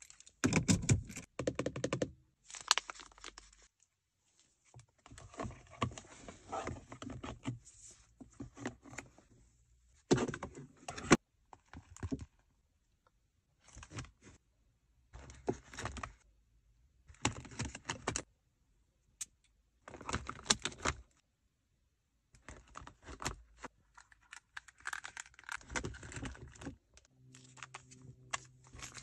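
Close-up handling noises in short bursts with brief silent gaps between them: a Mercedes key fob clicking and jangling, then small plastic items being packed into a clear plastic pouch, with rustling, light clicks and knocks.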